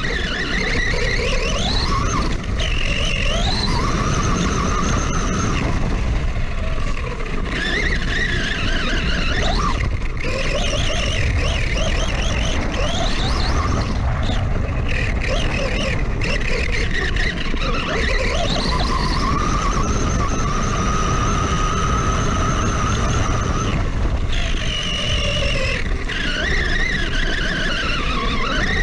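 Electric drive whine of an FTX Outlaw RC truck's brushless motor (Etronix 3450kv) and gears, repeatedly rising and falling in pitch with throttle and speed, and held level for a few seconds past the middle before dropping away. Under it runs a constant rush of wind and tyre noise through grass.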